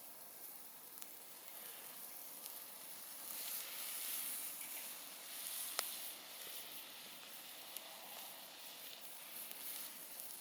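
Campfire burning with a faint, steady hiss and crackle, and a few sharp pops, the loudest a little past halfway.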